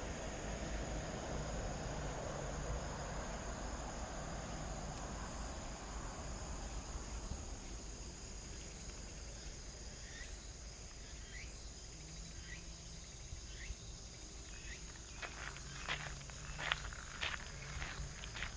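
Insects chirping steadily outdoors, a continuous high shrill with repeated faint chirps. About fifteen seconds in, footsteps begin, a run of uneven steps.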